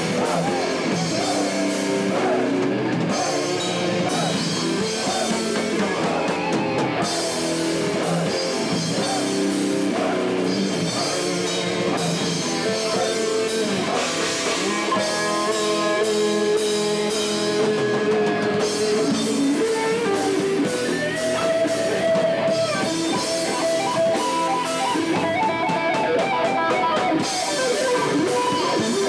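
Live metal band playing loud: distorted electric guitars over a drum kit. Long held guitar notes come in over the riffing about halfway through.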